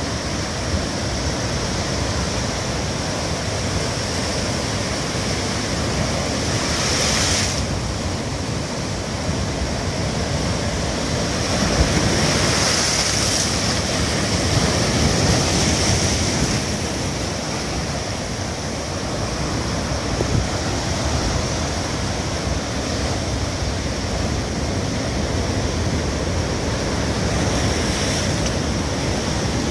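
Heavy surf in a rough sea: breakers crashing and washing over shoreline rocks in a continuous rush of water, swelling louder a few times as big waves break. Wind buffets the microphone.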